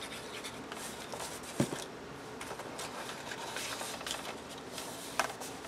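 Scrapbook paper and cardstock rustling and sliding as an envelope is handled and folded by hand, with a light tap about a second and a half in and another near the end.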